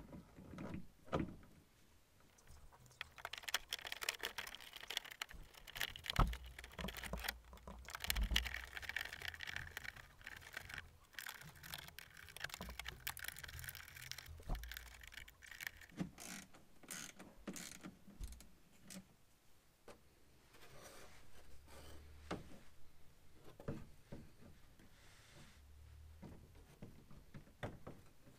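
Work with a screwdriver under a car: faint clicking, scraping and rattling on the fasteners and the plastic undertray, with a long stretch of scraping in the first half and scattered knocks.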